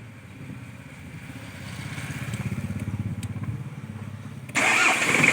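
Car engine turned over by its starter motor, a rapid low pulsing that grows louder. About four and a half seconds in, it changes abruptly to a louder steady engine run with a high whine on top.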